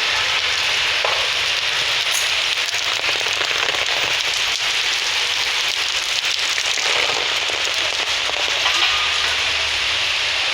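Steady rain falling, with a dense patter of drops ticking close by.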